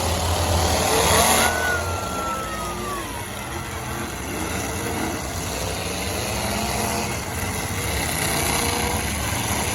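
Demolition derby cars' engines running and revving, with a low rumble throughout and a louder surge about a second in.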